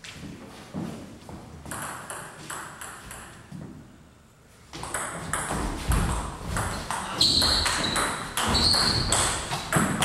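Table tennis ball clicking: first a run of light, evenly spaced taps, then after a short pause a fast rally of louder clicks off the bats and table.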